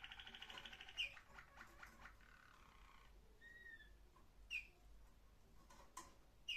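Waterslager Malinois canary singing faintly: a fast, pulsing rolled trill that fades out two or three seconds in, followed by a couple of short whistled notes and a few sharp single chirps.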